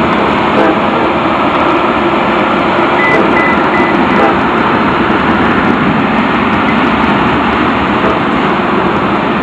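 Freight train of loaded tank cars rolling past, a loud steady noise of wheels on rail. About three seconds in, a back-up alarm gives a short series of high beeps.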